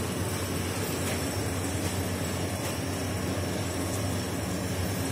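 Small single-cylinder 125cc dirt bike engine idling steadily.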